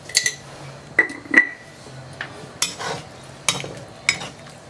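A spoon knocking three times against a metal cooking pan, the pan ringing briefly, then clattering against the pan as the curry is stirred.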